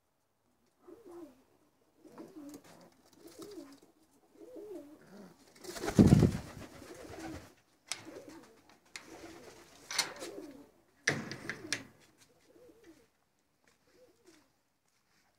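Doves cooing in an aviary, repeating low, rolling coos again and again, fading out near the end. About six seconds in there is a loud rustling burst, and a couple of sharp clicks follow a few seconds later.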